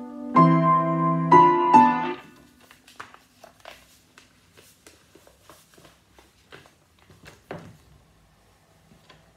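Upright piano: three loud chords in the first two seconds, then the playing stops. The rest is quiet rustling and flapping of sheet-music pages being handled, with one soft knock about seven and a half seconds in.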